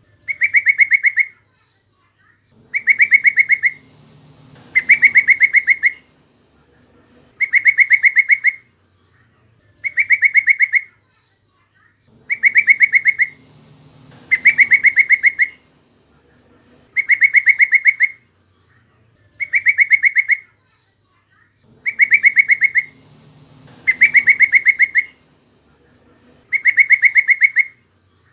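Sooty-headed bulbul (trucukan) call, a fast chattering trill about a second long, repeated again and again every two seconds or so, at the same pitch each time.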